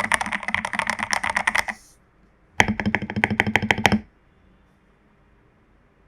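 Rapid typing on a foam- and tape-modded Royal Kludge RK84 mechanical keyboard with lubed Jelly Strawberry v2 switches and XDA keycaps. Two quick runs of keystrokes come with a short pause between them, and the typing stops about four seconds in.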